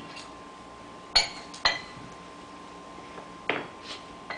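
Tableware clinking: about five sharp, ringing clinks, two just over a second in and three more from about three and a half seconds in.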